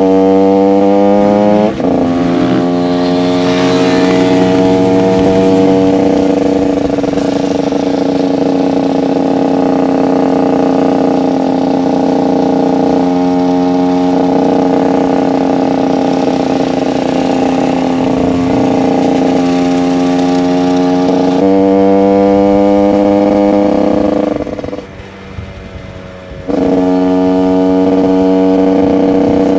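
TM SMR 125 two-stroke single-cylinder engine through an aftermarket HGS exhaust, heard from on the bike while riding. It rises in pitch, drops as a gear is changed about two seconds in, then holds a steady cruising note. It climbs again after about twenty seconds, goes much quieter off the throttle for a couple of seconds, and picks back up.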